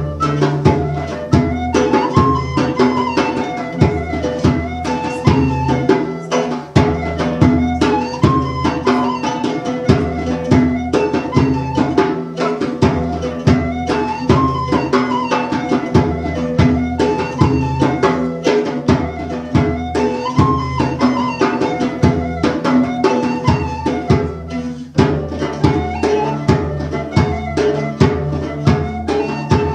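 Live folk instrumental: an Irish wooden flute plays a melody whose phrase comes round about every three seconds, over rapid hand-drum strokes on a goblet drum and a plucked bowl-backed lute.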